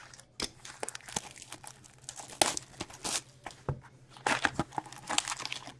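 Plastic shrink wrap being slit and torn off a hobby box of trading cards, crinkling and crackling in irregular bursts, with a faint steady hum beneath.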